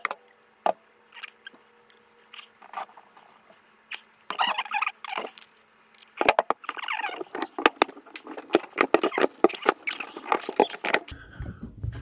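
A Teflon-taped metal gas pipe fitting being screwed by hand into a replacement furnace gas valve, with the valve body handled and turned on the bench: scraping from about four seconds in, then a dense run of scratchy metal clicks and rasps that stops about a second before the end.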